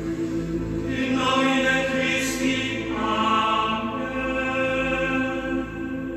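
Music: a choir chanting long held notes over an ambient backing, with the chant stepping up in pitch about three seconds in.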